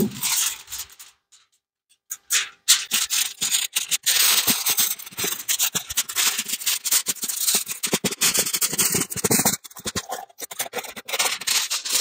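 Sheet of aluminum foil crinkling and crackling as it is handled and folded around a foam insulation board, a dense run of irregular crackles that starts after a short pause near the beginning.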